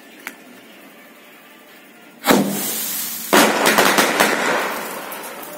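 Anil Star Twist seven-shot aerial firework going off: a shot launches with a sudden loud rush about two seconds in, and about a second later the shell bursts into a dense run of crackles that fades away.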